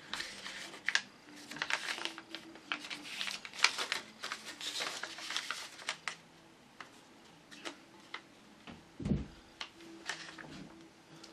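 A sheet of letter-size printer paper being handled, folded and creased by hand on a wooden table: irregular crisp rustles and crinkles, busiest in the first half and sparser later. There is a dull low thump about nine seconds in.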